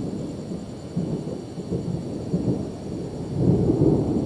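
Thunder rumbling from a lightning storm, a rolling low rumble that swells loudest near the end.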